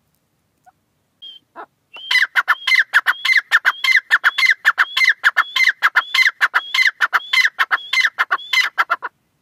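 Gray francolin calling: a few separate notes, then a fast run of loud, shrill repeated notes, about three a second, that stops shortly before the end.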